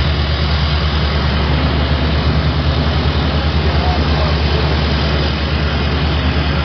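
A heavy engine idling steadily, a low pulsing drone with a hiss of background noise over it.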